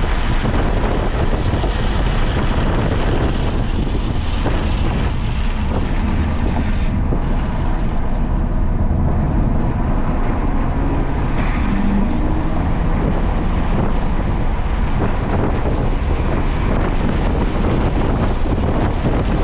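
A vehicle running at speed on a race track, its engine and road noise mixed with heavy wind buffeting the microphone. The hiss thins for about two seconds roughly seven seconds in, then comes back.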